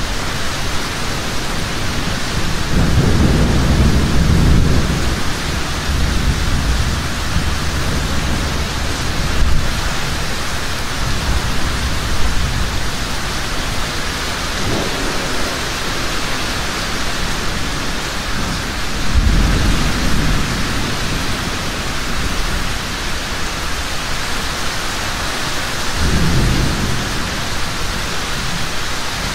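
Heavy rain falling steadily, with several low rolls of thunder: the longest a few seconds in, others about two-thirds of the way through and near the end.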